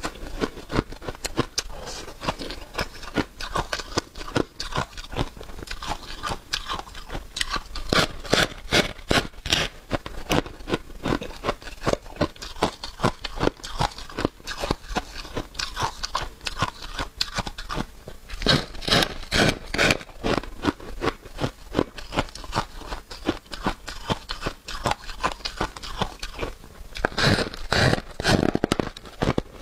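A person biting into and chewing a slab of flaky freezer frost: dense crisp crunching throughout, with louder runs of bites about a third of the way in, about two thirds in and near the end.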